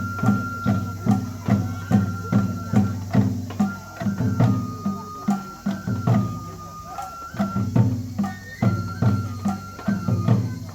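Japanese festival music for a lion dance: drums beat a steady rhythm of about two and a half strokes a second under a high melody line held on long notes that steps between a few pitches, typical of a bamboo flute. The drumming thins out briefly about three quarters of the way through.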